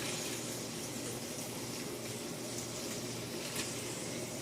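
Food sizzling steadily on a hot steel griddle, with a faint crackle now and then.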